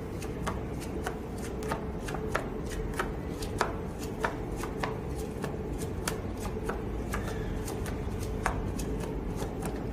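Playing cards being turned over and laid down on a table: a string of light, irregular card snaps and taps, one or two a second, over a faint steady hum.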